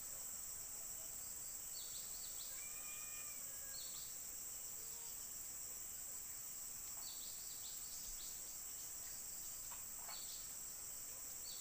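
Steady, high-pitched drone of insects, with repeated short chirps every few seconds and a brief pitched call about three seconds in.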